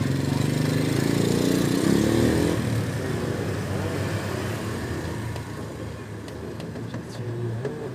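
A small engine running, its pitch wavering over the first couple of seconds, then fading away gradually.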